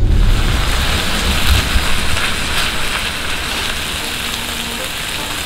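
Makchang (grilled intestines) sizzling on a hot grill pan: a steady, crackling hiss that cuts in suddenly at the start.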